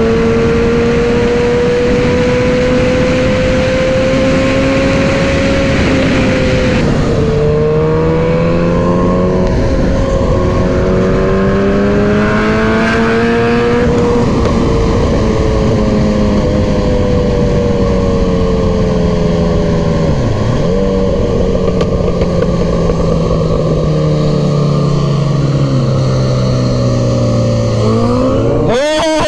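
Suzuki Hayabusa's inline-four engine running on the move, heard from the rider's seat over steady wind noise. Its pitch climbs slowly and drops sharply twice, about seven and fourteen seconds in, as it changes gear. Near the end a second sportbike's engine note sweeps up and down close by.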